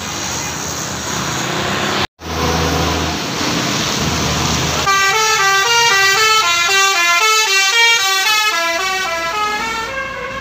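A large vehicle's engine running on the road, then from about five seconds in a bus 'telolet' horn, a set of musical air horns, plays a quick stepping tune of changing notes for about five seconds.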